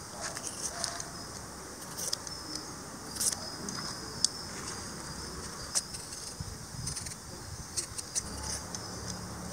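Hand vegetable peeler scraping the skin off a raw potato in short, separate strokes, each a quick click-scrape. A steady high chorus of crickets runs throughout.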